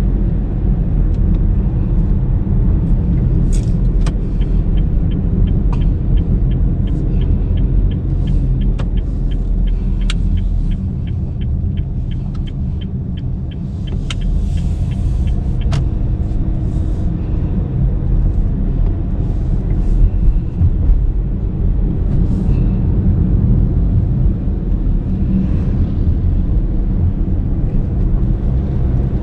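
Steady low road and engine rumble inside the cabin of a 2019 Honda Brio CVT on the move. From about four seconds in, the turn-signal indicator ticks evenly, about three ticks a second, and stops after about eleven seconds.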